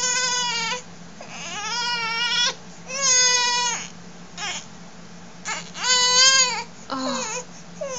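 A four-month-old baby crying in a series of short, high-pitched wails, about five in all, with short pauses between. It is a frustrated fuss while he struggles to roll over from lying on his tummy.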